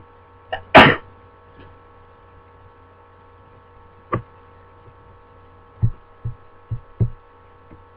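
A person sneezes once, sharply, about a second in, with a short in-breath just before it. A steady electrical hum runs underneath, and a few soft low thumps come in the second half.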